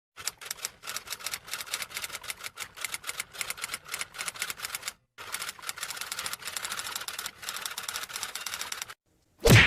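Rapid mechanical clicking like fast typing, in two runs of about five and four seconds with a brief pause between them. A single short, loud thump comes near the end.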